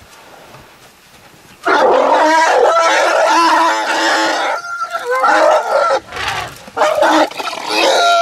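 African elephants trumpeting and screaming loudly during a shoving scuffle in the herd. The calls start suddenly about two seconds in and come as several long, wavering calls with short breaks between them.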